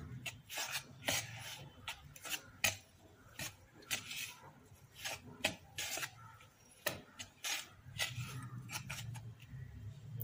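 Wire whisk stirring dry flour, sugar and yeast in a plastic bowl: quick, uneven scratchy strokes, about two or three a second.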